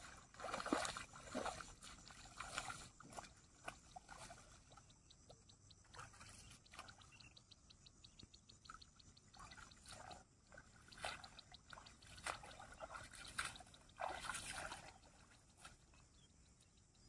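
Water splashing and sloshing in irregular bursts as a hooked snakehead fish is fought and dragged through shallow marsh water on a rod, loudest near the start and again near the end. A run of quick, even clicks comes midway.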